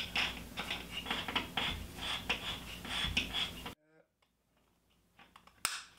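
Rattling, scraping handling noise with many small clicks as an Ethernet cable is pushed through an orange plastic low-voltage mounting bracket into the wall. The noise stops abruptly about two-thirds of the way through, and one sharp click follows near the end.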